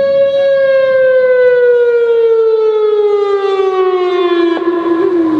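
Whelen WPS 2906 electronic outdoor warning siren sounding its wail, one loud tone that holds and then slowly falls in pitch.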